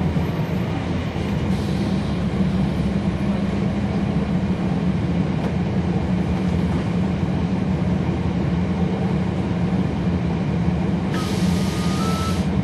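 Cabin sound of a NABI 40-foot transit bus with its Cummins ISL9 diesel engine running steadily. About eleven seconds in, a hiss of air starts together with a thin electronic warning tone that steps up slightly in pitch.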